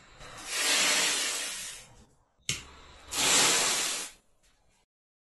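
Homemade green fire pyrotechnic composition flaring up and burning with a rushing hiss, twice, each burst lasting about a second and a half, with a sharp click just before the second.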